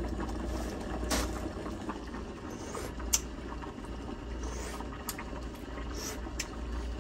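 A pot of chicken and rice soup simmering, with a few light clicks of a metal spoon against the pot and two short slurps as it is tasted from the spoon.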